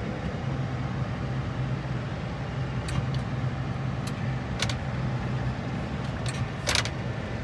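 Tractor engine running steadily, heard from inside the cab while the front loader handles a round hay bale. A few short sharp clicks come in the middle, with a louder one near the end.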